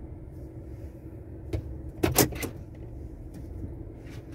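Cab of a 2010 Chevrolet Avalanche with its 5.3-litre V8 idling as a steady low rumble and faint hum. A few sharp clicks and taps cut through it, the loudest a quick cluster about two seconds in.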